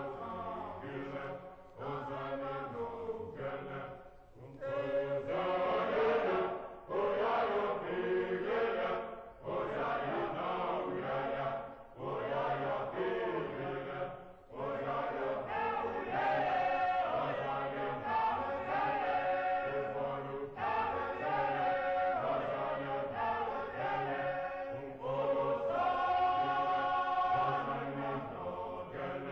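Background music with chant-like singing over held low notes.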